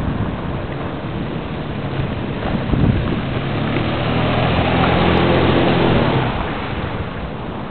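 A motor vehicle passing by: its engine hum and tyre noise swell to a peak about five seconds in and then fade, over a steady hiss.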